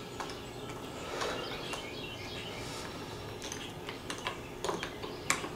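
Scattered sharp clicks and light knocks from hand tools and small parts being handled while a chainsaw is reassembled, the loudest near the end. Birds chirp in the background.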